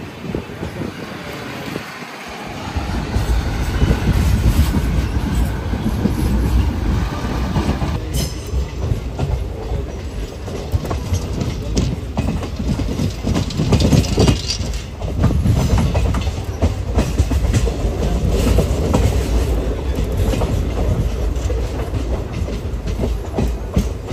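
Passenger express train running along the track, heard from an open coach doorway: the coaches rumble and the wheels clatter over the rail joints. It gets louder about three seconds in.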